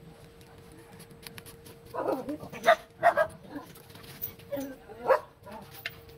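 A dog barking in short yelps a few times, starting about two seconds in, over a faint steady hum.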